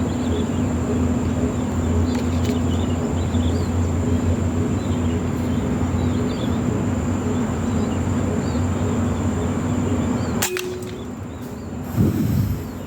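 Small birds chirp faintly over a steady outdoor hum. About ten seconds in there is a sharp click, and near the end a short, loud pop, the loudest sound here, which fits an air rifle shot.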